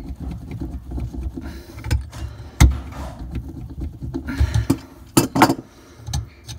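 An old brass shut-off valve being twisted and worked off a copper water pipe stub by gloved hands: rubbing and scraping with scattered sharp metal clicks and knocks, the loudest about two and a half seconds in and two more close together near five seconds.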